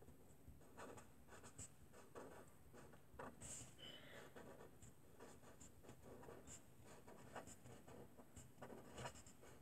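Faint, irregular scratching of a pen writing on a sheet of paper on a table.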